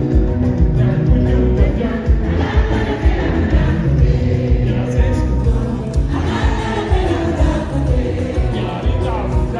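Live band music (drum kit, electric guitar, bass guitar and keyboard) with a steady beat, and many voices singing together over it.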